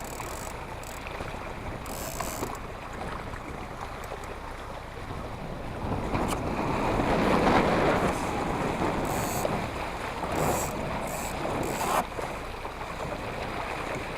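Water rushing and splashing along the hull of a small sailing dinghy, with wind on the microphone. The water sound swells about six seconds in and eases after about eight seconds.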